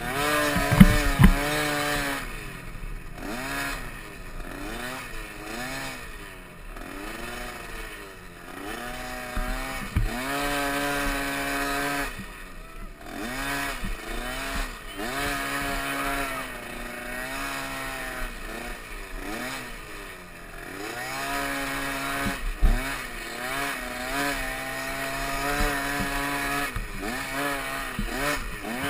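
Youth dirt bike's small engine revving up and down over and over as it is ridden over rough dirt, with a few brief thumps.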